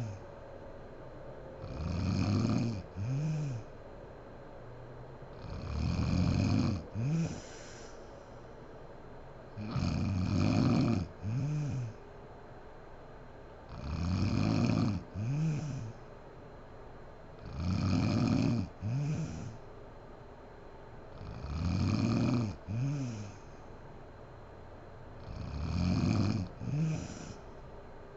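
A sleeping woman snoring in a regular rhythm, about one snore every four seconds. Each snore is a longer one followed at once by a shorter one, with quieter breathing between.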